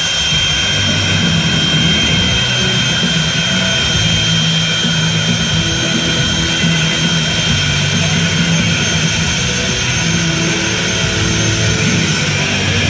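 A jet engine running steadily with a constant high whine, likely a jet-powered drag racing car at the starting line, over a broad rush of noise.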